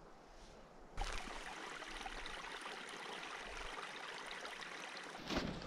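Small stream running over rocks, a steady rush of water that begins abruptly about a second in. Louder irregular knocks and crunches come in near the end.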